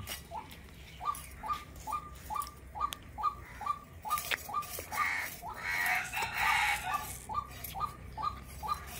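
A bird calling one short note over and over at an even pace, about twice a second. For a couple of seconds midway there is scratchy scraping from fish being scaled against a bonti blade.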